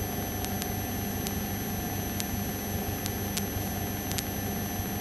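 Light aircraft's piston engine droning steadily in the cockpit during circuits, with a few faint clicks and a thin high electrical whine over the noise.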